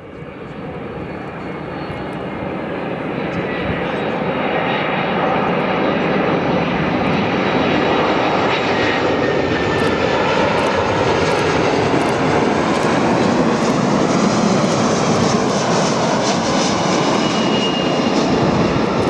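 Airbus A340-300's four CFM56 jet engines on final approach, swelling over the first several seconds as the airliner nears, then a steady loud rumble as it flies past low toward the runway, with a faint high whine above it.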